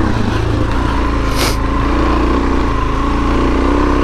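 Suzuki DRZ400S single-cylinder four-stroke engine running fairly steadily while the bike is ridden on slippery trail, with a brief hiss about one and a half seconds in.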